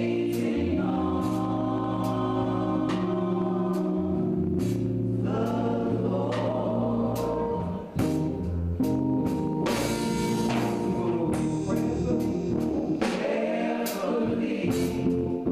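Gospel music with a choir singing over a band with bass and drums, a steady beat throughout.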